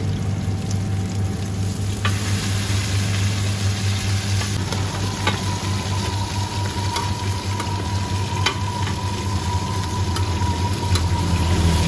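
Seafood omelettes sizzling steadily in oil on a large round pan, over a steady low hum. Metal spatulas click and scrape against the pan every second or two.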